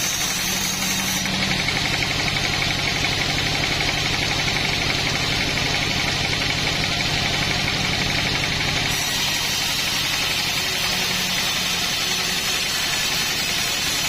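Sawmill engine running steadily, with a shift in its sound about nine seconds in.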